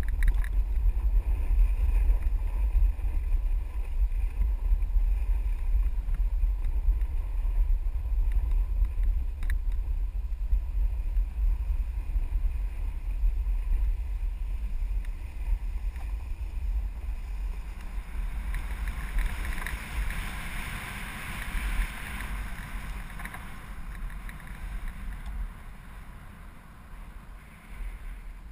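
Wind buffeting the microphone in a low, steady rumble as a snowboard slides downhill, with the hiss of the board's edge scraping over packed snow. The scraping is loudest for a few seconds past the middle, and the whole sound eases off toward the end.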